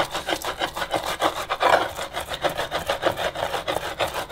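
Stone pestle scraping fresh herbs against the ridged inside of an earthenware namak-sab bowl, in quick rhythmic back-and-forth strokes, several a second, grinding the herbs down to a fine paste.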